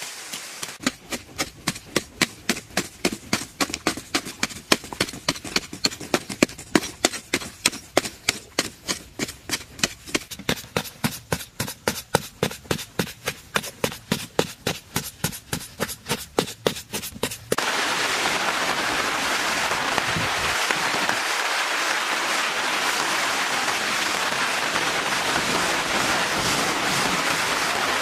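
Rapid, evenly paced knocks, several a second, like blows of a hand tool, for most of the first two-thirds. Then a steady hiss-like noise that starts suddenly.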